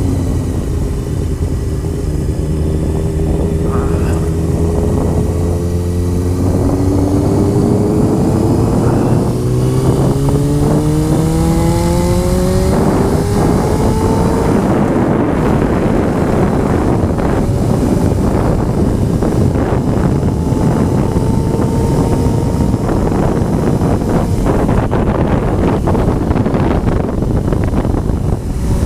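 Honda CBR motorcycle engine running steadily, then accelerating with its pitch climbing in a few steps as it shifts up through the gears. Once up to speed, heavy wind noise on the microphone covers most of the engine.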